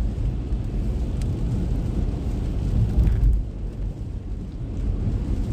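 Road and tyre noise of a car driving in heavy rain on a wet road, heard inside the cabin: a steady low rumble that swells about three seconds in and eases just after.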